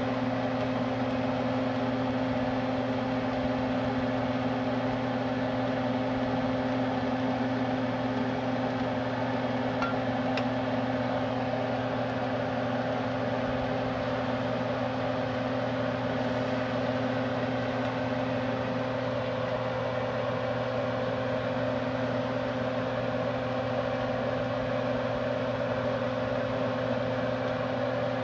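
Steady hum of a kitchen exhaust fan running, several fixed tones over a even whir, with no change in pitch or level.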